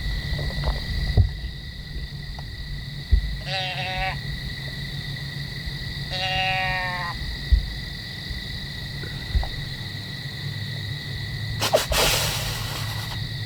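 Deer calls: two short, nasal bleats, the second longer, then near the end a few sharp puffs running into a drawn-out hiss, the pattern of a buck's snort-wheeze.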